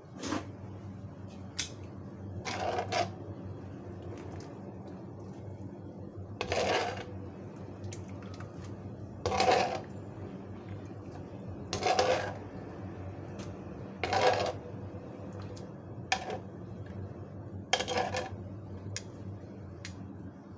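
Metal kitchen utensils clinking and knocking against cookware in a series of short strikes with a brief ring, spaced a couple of seconds apart, over a steady low hum.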